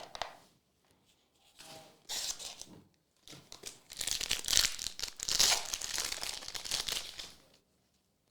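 Foil trading-card pack wrapper being torn open and crinkled: a short crinkle about two seconds in, then a longer, louder stretch of tearing and crinkling for about four seconds.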